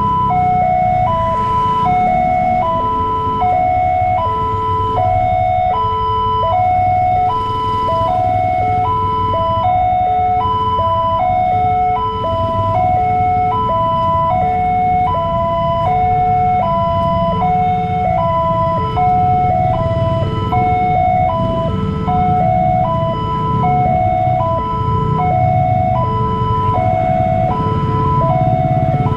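Railway level-crossing warning alarm: an electronic chime repeating a short falling run of notes about once every second, sounding without a break while the barrier is down. Under it runs the low rumble of waiting motorcycle and car engines.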